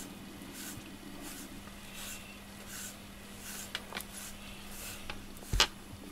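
FURminator deshedding brush drawn in repeated strokes through a cat's thick coat, a soft rasp about every two-thirds of a second, pulling out loose undercoat. A few light clicks follow, then a single sharp knock near the end, the loudest sound.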